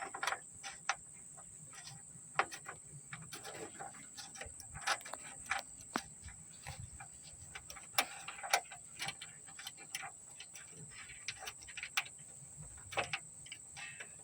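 Irregular metallic clicks and taps from a socket ratchet and bolts as the trunk latch's bolts are threaded back in and snugged down by hand.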